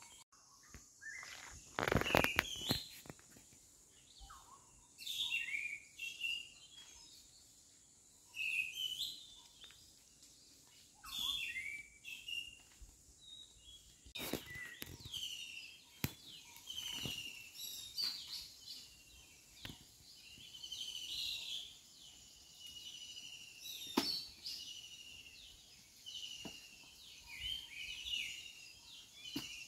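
Birds chirping and calling throughout in short, quick rising and falling notes, with a few sharp knocks now and then, the loudest cluster about two seconds in.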